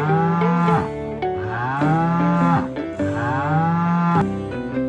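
Cow mooing three times, each a long call about a second long, over a light background tune.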